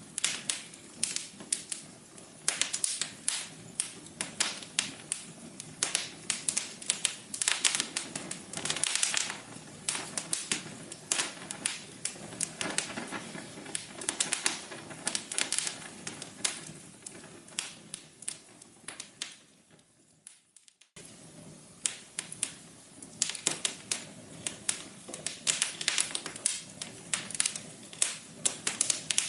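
Wood fire crackling in a fireplace: a steady stream of irregular sharp pops and snaps over a soft hiss. About two-thirds of the way through it dies away to a brief near-silent gap, then cuts back in abruptly.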